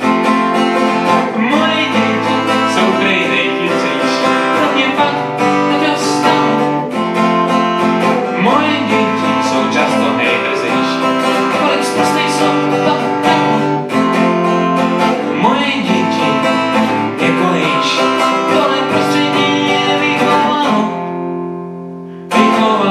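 Acoustic guitar strummed in steady chords while a man sings along. Near the end a chord is left to ring and fade, then a sharp new strum comes in.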